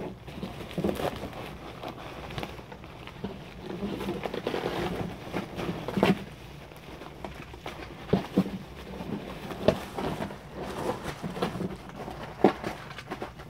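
Plastic wrapping and cardboard boxes rustling and crinkling as toy robots are unpacked, with scattered sharp clicks and knocks from handling.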